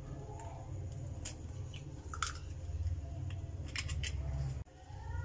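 Eggshells being tapped with a knife blade and cracked open over a glass bowl of flour: a few sharp clicks, then a quick cluster of cracks near the end, over a low steady hum.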